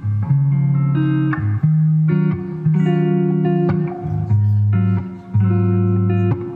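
Background music: guitar-led instrumental with plucked, sustained chords changing about once a second.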